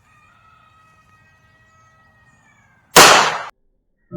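A single .22 Magnum shot from a Heritage Barkeep revolver, about three seconds in: one sharp, loud report that dies away within half a second.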